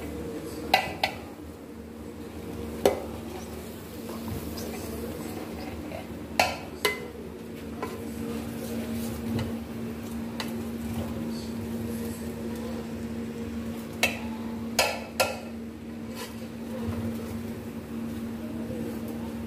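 Long metal spoon stirring and scraping layered biryani rice in an aluminium cooking pot, with sharp clinks as it knocks the pot's side, in small clusters about a second in, near three seconds, around six and a half seconds and near fifteen seconds. A steady low hum runs underneath.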